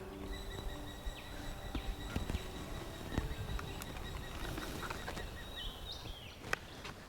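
Bushland ambience: small birds chirping over a steady high-pitched whine, with a few sharp clicks. The chirps come mostly near the end, and the whine stops shortly before them.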